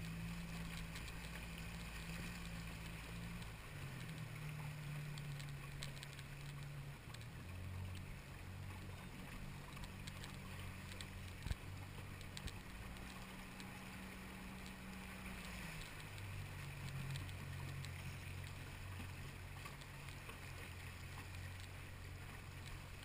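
Outboard motor of an inflatable boat running slowly, a steady low hum that shifts in pitch a few times, over the wash of water along the hull. One sharp knock comes about halfway through.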